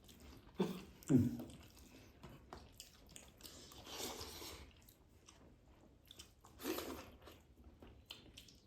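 Faint chewing and biting mouth sounds of people eating a meal, with two short hums or murmurs about a second in and another near the end.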